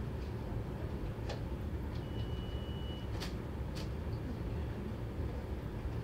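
Steady low room rumble with a few faint clicks, and about two seconds in a single high electronic beep lasting about a second.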